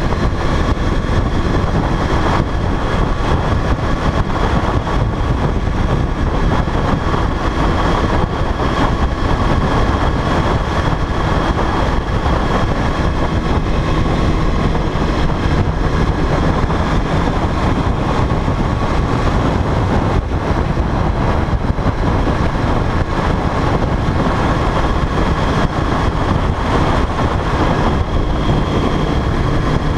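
Sport motorcycle riding at a steady pace: wind rushing over the bike-mounted camera's microphone, with the engine running underneath.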